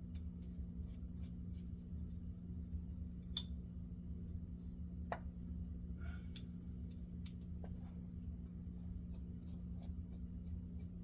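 Sporadic small clicks and taps of metal reel parts and a screwdriver while a vintage Pflueger Supreme baitcasting reel is taken apart, with a few sharper clicks in the middle, over a steady low hum.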